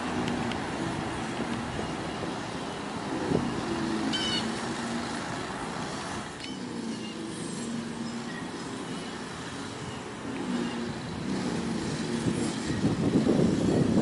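Steady low rumble of a motor vehicle, swelling louder near the end, with two short high chirps about four and six seconds in.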